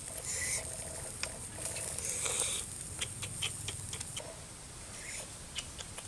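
Light scattered clicks and rustles as a whole chicken on a bamboo spit is lifted and turned over hot embers.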